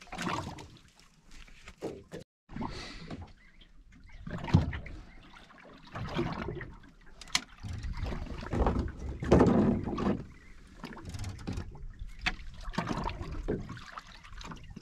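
Sea water slapping and sloshing against the hull of a small boat drifting on a fishing mark, in irregular surges every second or two, with a single click about seven seconds in.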